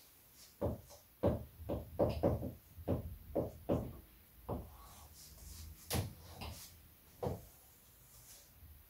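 Dry-erase marker writing and drawing lines on a whiteboard: a run of short, irregular taps and strokes that thins out near the end.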